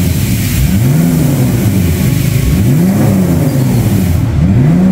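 BMW E46 325's straight-six engine revved in repeated short blips, about one a second, each rising and falling in pitch. It is being run through a test replacement muffler to judge how deep and quiet its exhaust note is.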